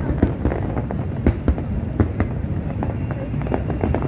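Fireworks going off in a rapid, irregular barrage: sharp bangs and crackles, several a second, over a continuous low rumble of shell bursts.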